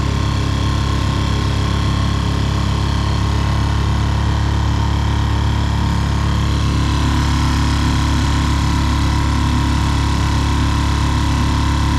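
Small Mercury F3.5 four-stroke outboard motor running steadily under way at a constant throttle, pushing an inflatable boat.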